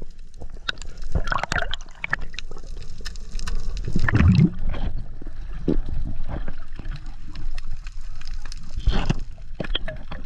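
Muffled underwater water noise through an action camera's waterproof housing: irregular gurgling and sloshing surges with scattered short clicks.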